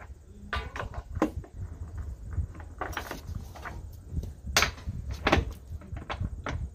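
Irregular knocks and clicks from work on the keel bolts as the keel is drawn up against the hull, over a low, steady rumble.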